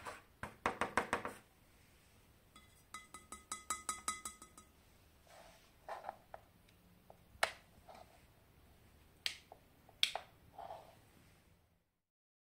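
Handling noise from a bedside lamp: quick rattling taps on its shade, one run with a faint ring, then several single sharp clicks from the inline switch on the lamp's cord.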